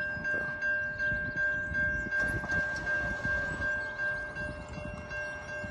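Safetran type 3 electronic crossing bell ringing in rapid, evenly repeated dings: the crossing's warning for an approaching train.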